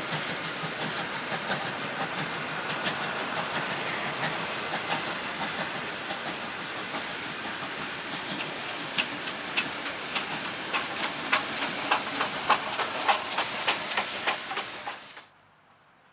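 A steam-hauled heritage passenger train passing close by: a steady clatter of carriage wheels with a hiss of steam, then a run of loud, sharp clicks as the steam locomotive's wheels cross the rail joints. The sound cuts off abruptly about a second before the end.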